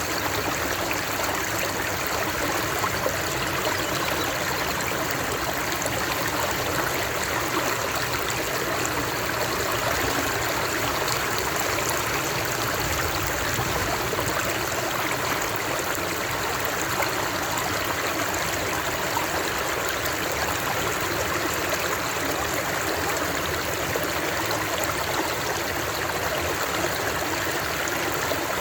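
Flowing water, rushing and splashing steadily without a break.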